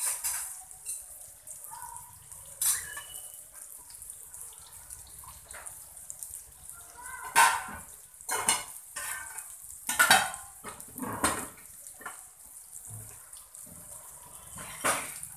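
Surmai fish pieces sizzling steadily in shallow oil on a flat tawa, with a string of irregular steel clanks and clinks from the steel spice box and its lid being handled.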